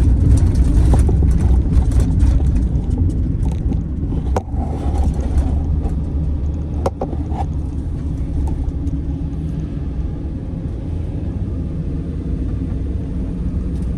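Car driving along a city street, a steady low rumble of road and engine noise heard from inside the vehicle, with a couple of sharp clicks about four and seven seconds in.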